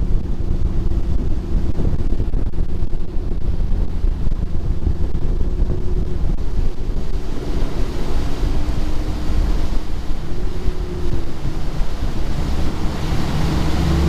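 Outboard-powered bass boat running under way, with heavy wind buffeting on the microphone over the engine and the hull on the water. The engine note drops a little about halfway as the boat is throttled back to about 13 mph, and a low engine hum comes through more clearly near the end.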